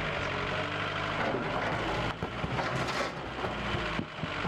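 Vehicle engine running with irregular clattering over a rough, rushing noise.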